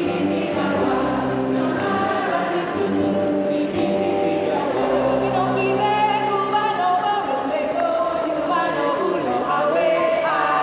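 Mixed choir singing in several voice parts, holding long notes that move together from chord to chord.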